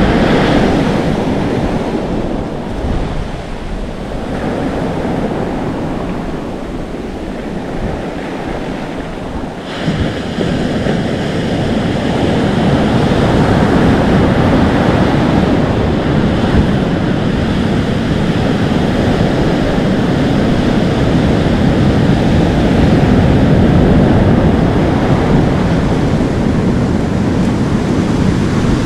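Atlantic Ocean surf: waves breaking and foaming up the shore in a continuous rushing wash, with wind buffeting the microphone. About ten seconds in a wave crashes in and the rush grows louder and stays so.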